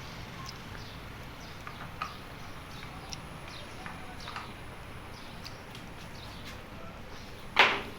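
Scattered short bird chirps over a faint steady low hum, with one much louder, sharper chirp near the end.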